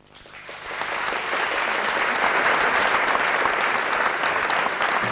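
Theatre audience applauding at the end of a song. The clapping swells in over the first second and then holds steady.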